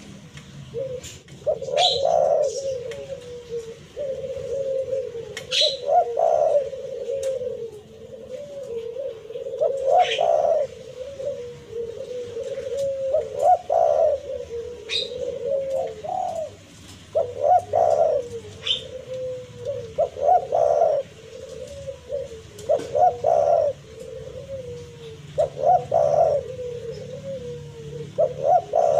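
Spotted dove (tekukur) cooing on and on in repeated low phrases that swell every two to three seconds. A few short, sharp high chirps come in between.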